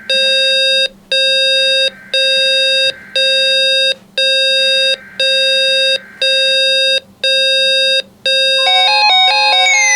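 NOAA weather radio receivers' warning alarms sounding for a routine weekly test. One radio beeps a steady, harsh tone about once a second. From about eight seconds in, a second alarm joins with a warbling, stepped tone and a falling siren-like sweep.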